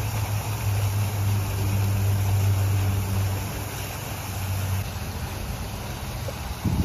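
A steady low motor hum that cuts off about five seconds in, followed by a short knock near the end.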